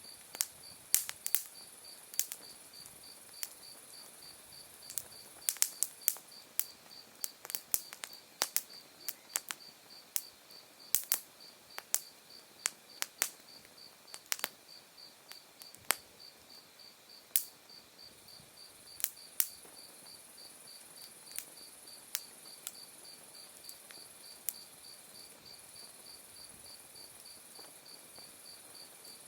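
An open wood fire crackling, with sharp, irregular snaps of burning firewood. They come thick in the first two-thirds and thin out toward the end. Under them, autumn insects chirp steadily: an even, rapidly pulsed chirp and a continuous high trill.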